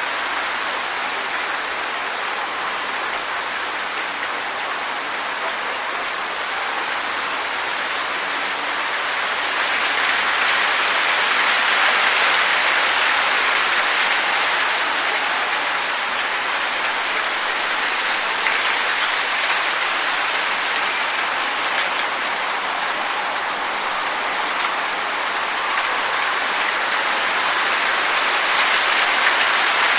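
Wind blowing through trees, leaves rustling in a steady hiss that swells in gusts about a third of the way in and again near the end.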